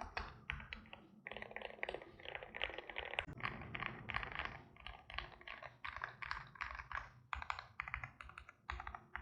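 Continuous typing on a KBDfans Maja V2 mechanical keyboard with lubed Prevail Epsilon linear switches in a polycarbonate plate, in a gasket-mounted aluminium case with case and PCB foam, under Cherry-profile keycaps. Fast, uneven keystrokes, with a quicker flurry of keys between about one and three seconds in.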